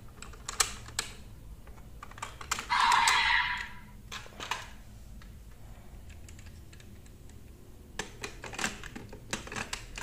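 Hard plastic clicks and snaps as raise buckles are handled and slotted into a DX Desire Driver toy belt. About three seconds in, a short electronic sound effect plays from the belt's speaker.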